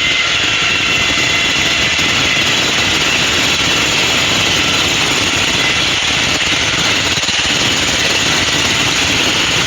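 A heavy engine running steadily and loudly, with a faint high whine over a dense rumble.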